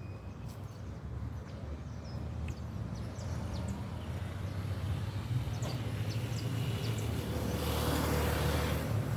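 Outdoor ambience: a low rumble that grows louder toward the end, with scattered brief bird chirps.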